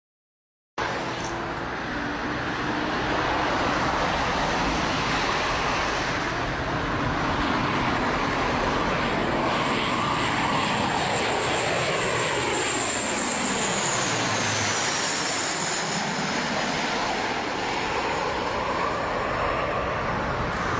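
Jet aircraft engines passing low overhead, starting abruptly about a second in. A steady loud rush with a high turbine whine that drops in pitch as the aircraft goes by, about two-thirds of the way through.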